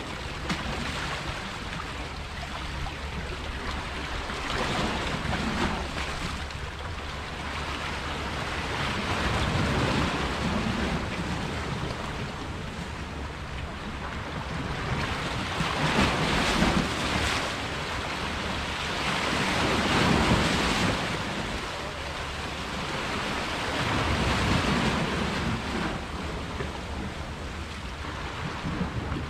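Small harbour waves washing against a rock platform, swelling and easing every few seconds, with wind rumbling on the microphone.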